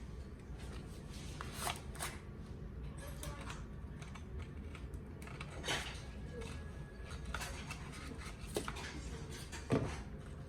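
Scattered clicks and short crinkles of small plastic toy pieces and packaging being handled, the loudest near the end, over a low steady hum.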